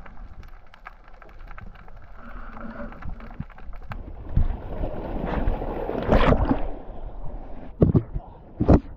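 Sea water sloshing and washing around lava rocks at the shoreline, with wind buffeting the microphone. A surge of noise swells about five seconds in, and two short, loud thumps come near the end.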